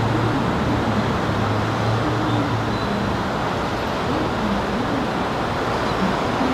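Steady traffic-like rumble as an orange 103 series electric commuter train approaches. A low hum fades out about two and a half seconds in.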